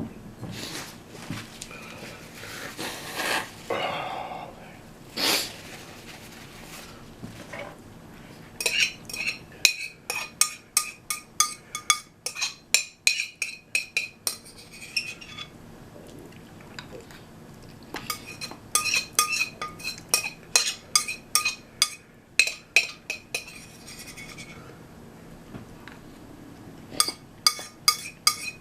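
A utensil clinking and scraping against a bowl in quick runs of about three strokes a second, with pauses between the runs: the last of the ramen being scooped out of the bowl. Softer, noisier sounds come before the first run.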